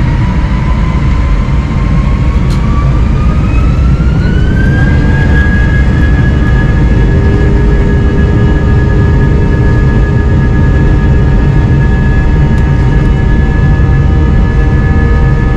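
Airbus A320 jet engines at takeoff power during the takeoff roll, heard from on board. A whine rises in pitch over about the first five seconds as the engines spool up, then holds steady over a loud low rumble.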